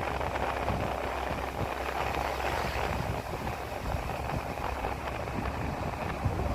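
Steady running noise of a moving vehicle, with a constant low hum and wind on the microphone.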